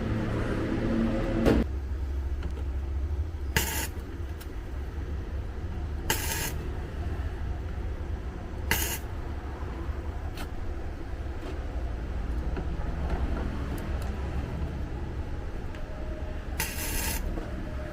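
CO2 MIG welder tack-welding the cracked steel of a car door's inner panel and window-regulator mount: four short welding bursts a few seconds apart, the last one longer, over a steady low hum.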